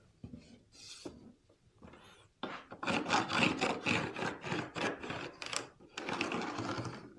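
Pencil scratching across cedar slats as a line is drawn along a straight board. After a few faint rubs it comes in quick repeated scratchy strokes from about two and a half seconds in.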